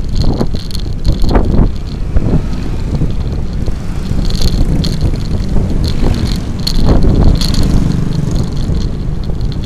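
Wind buffeting the microphone of a handlebar-mounted camera on a moving bicycle: a loud, steady rumble with a few short knocks from the ride.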